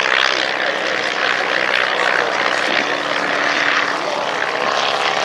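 Boeing Stearman Kaydet biplane flying past, its radial engine and propeller giving a steady drone with small shifts in pitch.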